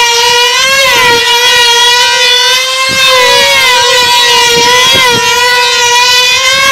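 Two F2D control-line combat model aircraft with 2.5 cc engines screaming at full throttle: a loud, high, steady whine that wavers slightly in pitch as the models circle the pilots.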